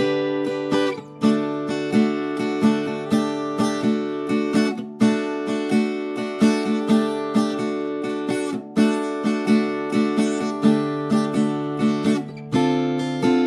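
Background music: an acoustic guitar strummed in a steady rhythm of about two strums a second.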